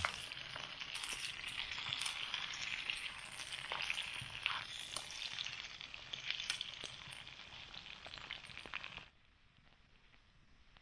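Diced potatoes frying in a pan over a campfire, sizzling steadily with small pops. The sizzle fades slightly, then cuts off abruptly near the end.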